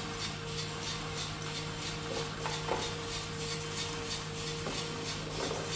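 Skywalker drum coffee roaster running during first crack: a steady motor-and-fan hum with a steady tone and beans tumbling in the drum, broken by a few sharp clicks.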